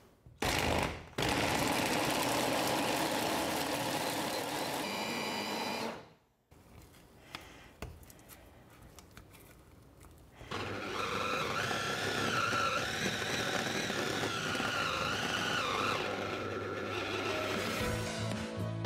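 Kenwood electric mini chopper running in bursts, its blade chopping frozen banana slices into soft ice cream: a short pulse, then a steady run of about five seconds. After a pause with a few light knocks, a second run of about five seconds follows, with a whine that wavers in pitch. Music comes in near the end.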